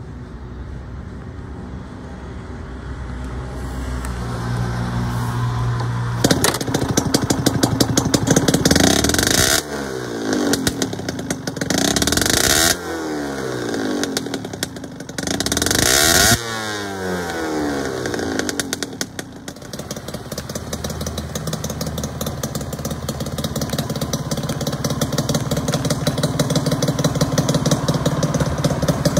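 Suzuki RG50Γ's small water-cooled two-stroke single-cylinder engine, through an aftermarket exhaust, idling, then revved three times, each held for a second or more before the revs fall back to idle, then idling again.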